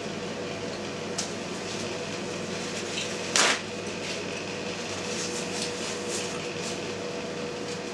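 A sheet of paper towel torn off a roll, one short sharp rip about three seconds in, followed by faint paper rustling as it is used to wipe the mouth. A steady faint hum runs underneath.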